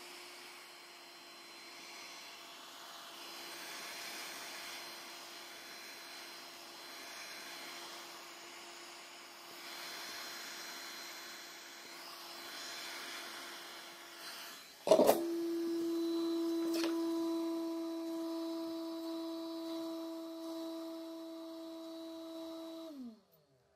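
A small electric motor running with a steady hum over a hiss. A sharp click about fifteen seconds in, after which the hum is louder. Just before the end its pitch falls quickly as the motor winds down and stops.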